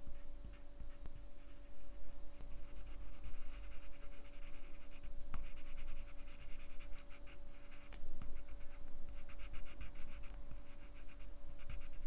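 Colored pencil scratching on paper in runs of quick, short back-and-forth strokes as it shades in a small area, over a faint steady hum.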